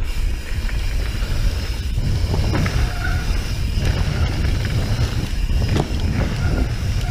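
Mountain bike rolling fast down a dirt trail: a steady low rumble of knobby tyres and wind on the microphone, with knocks and rattles of the bike over bumps. About three seconds in there is a brief squeal from the disc brakes, whose pads the rider thinks may be worn.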